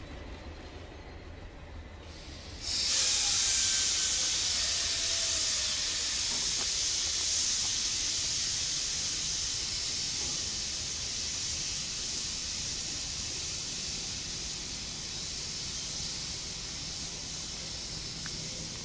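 Air brakes on a stopped freight train of boxcars venting: a loud hiss starts suddenly about three seconds in and slowly fades.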